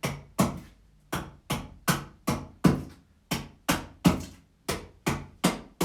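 Hand axe chopping into a green-wood vessel blank to shape the handle, sharp knocks about two and a half a second with short pauses about a second and about three seconds in.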